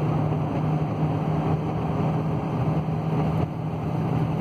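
Cabin noise inside a Ford Transit diesel van cruising on the highway: a steady low engine hum under tyre and road noise.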